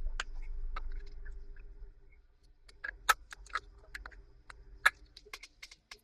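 Low rumbling handling noise for about two seconds, then irregular sharp clicks and taps from a laptop being handled and worked on, over a faint steady hum.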